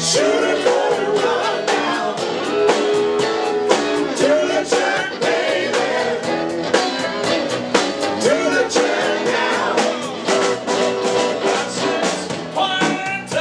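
Live rock band playing: a man singing over electric bass guitar and drums keeping a steady beat.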